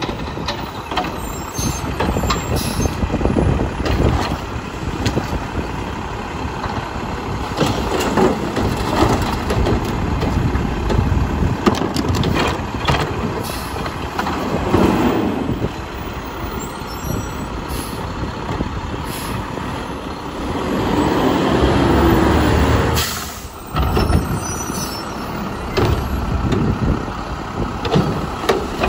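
Mack LEU garbage truck with a Heil Half/Pack front-loader body and Curotto Can working on route: diesel engine running, air brakes hissing and repeated clanks and knocks. Near the end the sound swells for a couple of seconds and then drops away sharply.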